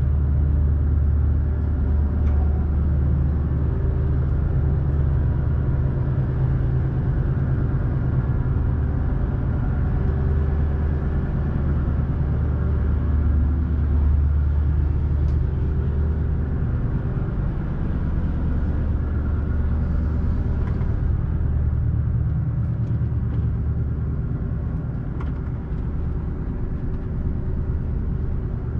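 Steady low drone of the fishing vessel's engine machinery running, heard inside the boat's accommodation, with a few faint clicks.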